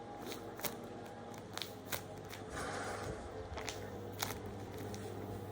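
A taped paper squishy being handled and squeezed: scattered faint crinkles and taps, with a brief soft rustle of paper about halfway through.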